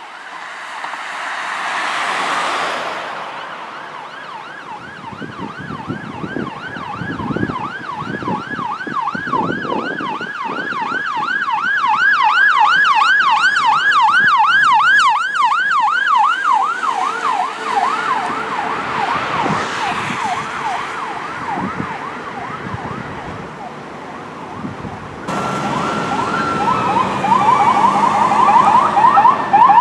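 Fire truck's electronic siren on yelp: a fast, regular up-and-down sweep that swells to its loudest partway through and then fades. After an abrupt cut near the end, another siren glides down in pitch and then yelps again, loud.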